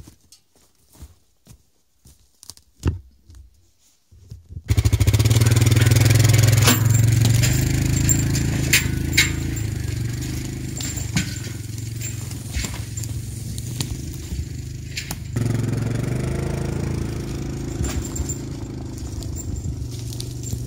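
Yamaha ATV engine running under load as it drags a log on an arch trailer, coming in suddenly about four seconds in and slowly fading as it pulls away. Before that, faint scattered snaps and rustles of twigs and brush.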